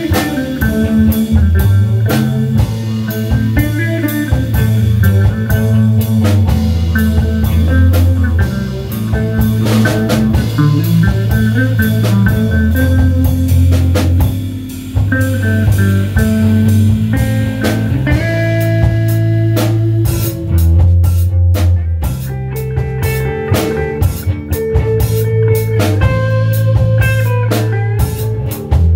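Improvised instrumental music from a trio: guitar lines over a drum kit, with low sustained notes underneath, in a loose blues and psychedelic rock style.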